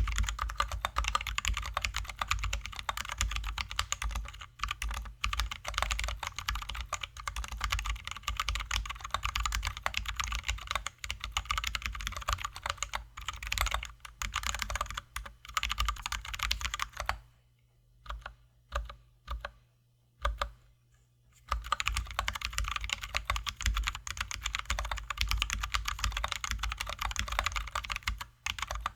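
Fast, continuous typing on a mechanical keyboard with lubed and filmed Zealios V2 67g tactile switches, XDA-profile keycaps and clipped, lubed stabilizers. There is a pause from about 17 to 21 seconds in with only a few scattered keystrokes, then steady typing resumes.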